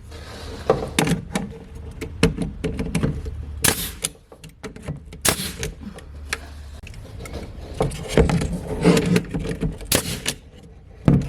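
Hand work pushing a piece of material firmly into place under paneling: irregular knocks, clicks and scrapes, some sharp, with a low steady hum underneath for the first several seconds.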